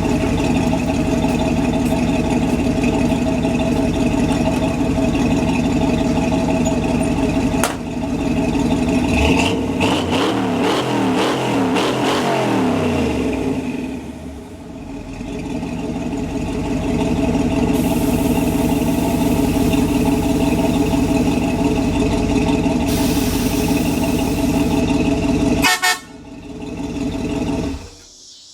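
Chevy 283 small-block V8 truck engine running steadily, its pitch sweeping up and down for a few seconds about a third of the way in. It stops suddenly near the end.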